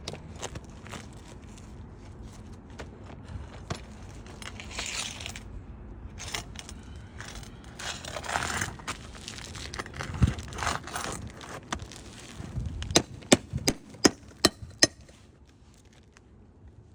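Hand tools working loose asphalt roof shingles: irregular scraping and rustling, then six or so sharp taps in quick succession in the last few seconds.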